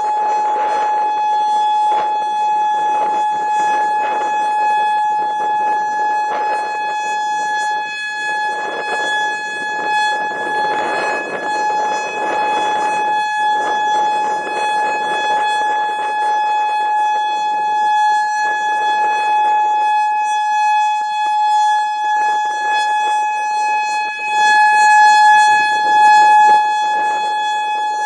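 Federal Signal Modulator 4016 electronic outdoor warning siren sounding a steady, unwavering tone during a test, its level swelling and dipping a little. Gusts of wind buffet the microphone throughout.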